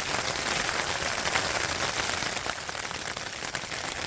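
Steady, dense pattering and rustling of weather on tent fabric, with no let-up.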